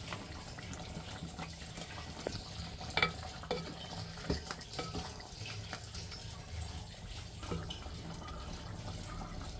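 Wooden spatula stirring a thick meat curry in a clay pot, scraping through the meat and knocking against the pot now and then, over the wet bubbling of the simmering curry.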